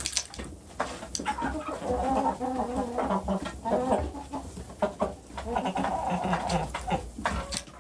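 Chickens clucking in a string of drawn-out, wavering calls, with scattered light clicks among them.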